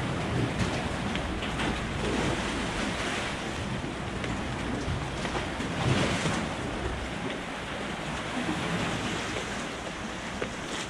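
Wind buffeting the microphone over a steady wash of waves, the low rumble of the wind easing after about seven seconds.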